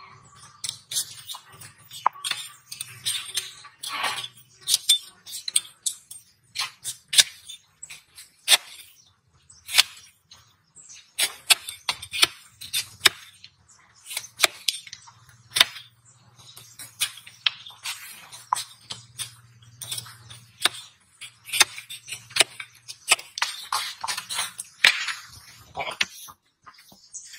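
Hoof knife paring a donkey's hoof: a fast, irregular run of sharp crunching and scraping strokes as the blade shaves away the hoof horn.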